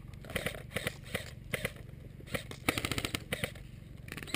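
Airsoft guns firing: scattered sharp single shots, then a rapid full-auto burst about two and a half seconds in.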